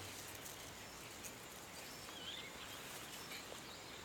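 Quiet outdoor ambience with a faint bird chirp about two seconds in.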